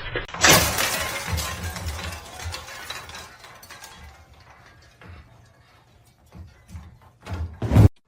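A sudden crash about half a second in, followed by clattering and rattling that fades over several seconds, then scattered clicks and a loud knock near the end that cuts off suddenly.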